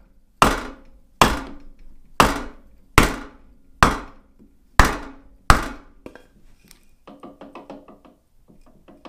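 Claw hammer striking a wood block held against a drill-press chuck, knocking it upward to seat the chuck on the spindle: seven sharp knocks about a second apart. Afterwards, faint rapid clicking as the chuck is turned by hand.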